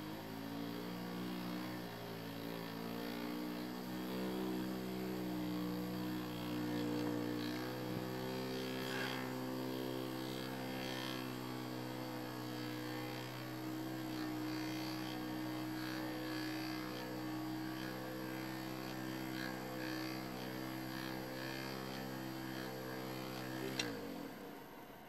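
Small DC motors coupled shaft to shaft, running with a steady electric hum after a brief rise in pitch as they come up to speed. The hum stops abruptly with a sharp click near the end.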